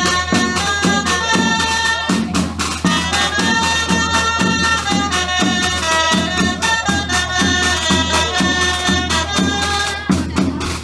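Traditional folk music: a melody over a steady low drone, with a regular percussion beat.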